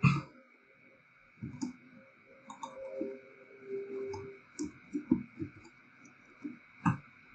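Scattered clicks of a computer mouse and keyboard during copying and pasting in a code editor: one sharp click right at the start, then irregular single and clustered clicks, a bunch of them around the middle and two more near the end.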